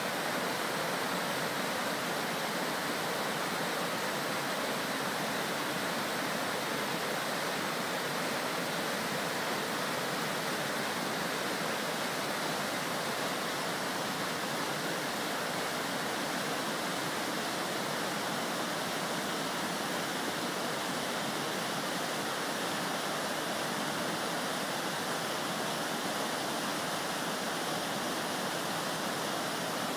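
Steady rush of whitewater rapids, a swollen river churning and pouring over rocks.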